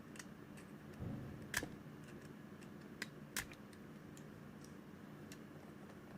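Faint clicks and ticks of a small blade tip picking at the metal shell of a micro USB plug, prying its bent retaining hooks back up, with a few sharper clicks in the middle.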